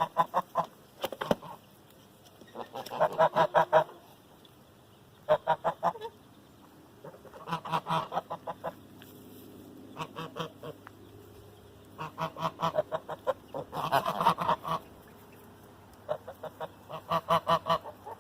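A flock of Sebastopol geese honking, in repeated bursts of quick, rapid-fire calls with short pauses between them.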